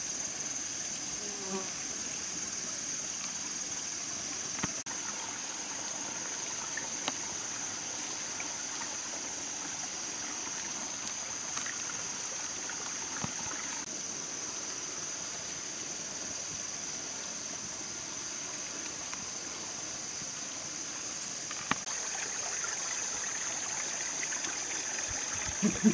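Steady forest ambience: a continuous high-pitched insect drone over an even hiss of running water, with a few faint scattered clicks.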